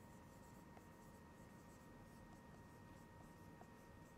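Near silence: a dry-erase marker writing on a whiteboard, with a few faint light ticks over a faint steady whine.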